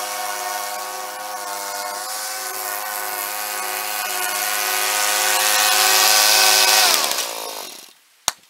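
Riding lawn mower engine running steadily, sped up four times so it sounds like a two-cycle weed eater. About seven seconds in its pitch falls and it stops as the engine is shut off, followed by a single sharp click.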